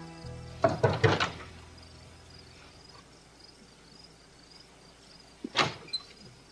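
Knuckles knocking on a wooden door: a quick run of about four knocks under a second in, then about three more near the end. Crickets chirp faintly throughout.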